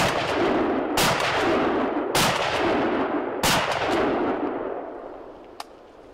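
Rifle fired rapidly, four shots roughly a second apart, each trailing a long rolling echo that dies away over the last couple of seconds. A faint click follows near the end.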